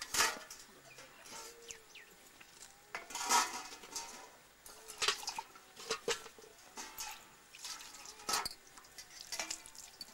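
Metal dishes (platters, cups and a bucket) clanking and scraping as they are washed by hand, with splashes of water. About half a dozen separate clatters, some with a short metallic ring.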